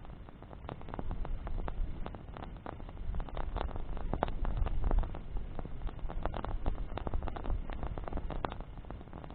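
Wood bonfire crackling, with many irregular sharp snaps and pops over a low steady rumble.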